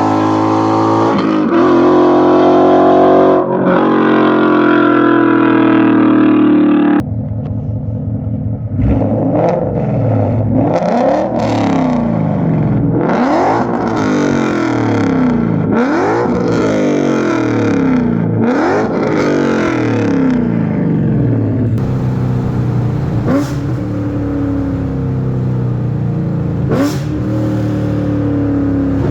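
V8 exhaust through an X-pipe and H-pipe with a Corsa resonator: steady running at first, then after a sudden cut several revs that rise and fall about every two seconds, then a steadier drone again. The pipe change is meant to cure a metallic, raspy exhaust "clap", which the owner finds almost gone.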